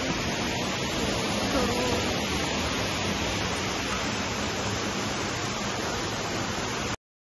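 Steady rush of a rocky mountain stream cascading over boulders, an even hiss that starts and cuts off abruptly.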